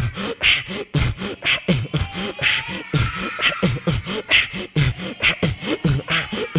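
A man beatboxing into a handheld microphone: a steady beat of deep kick drums and hi-hat clicks, with a snare sound about once a second.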